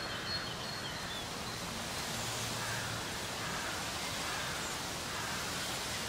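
Outdoor ambience: a steady hiss of background noise with faint rustling, and a few faint high chirps in the first second.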